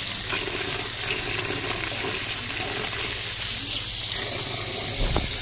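Water running steadily over taro (arbi) leaves as they are washed.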